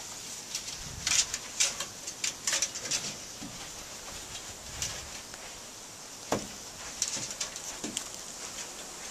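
Paws and feet scuffling and crunching in fresh snow as two dogs, a schnauzer and a Jack Russell terrier, scramble about, in irregular short bursts that are busiest in the first three seconds, with one sharper sound about six seconds in.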